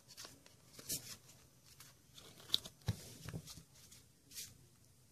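Pokémon trading cards handled and gathered into a stack in the hands: faint, scattered rustles and sharp clicks of card stock sliding and tapping together, the sharpest a little after two and a half seconds.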